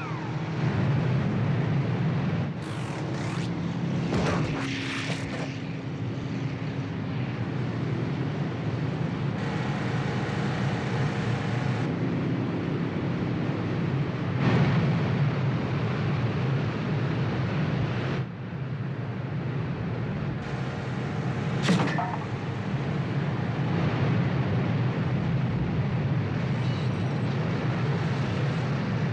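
Speedboat engines running at speed: a steady engine drone that changes abruptly in level several times, with a few short sharp hits, the loudest about twenty-two seconds in.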